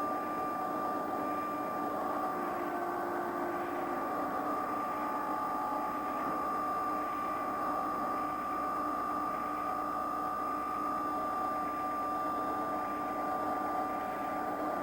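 Machinery running steadily: a constant hum and noise with a steady whine, unchanging in level throughout.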